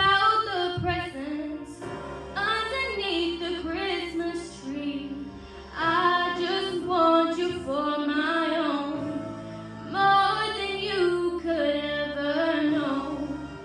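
Teenage girl singing solo into a microphone, with an instrumental backing holding steady low notes beneath her voice.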